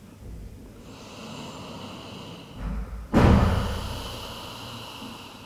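A person's slow, fairly quiet in-breath, then about three seconds in a sudden loud out-breath that trails off over about two seconds.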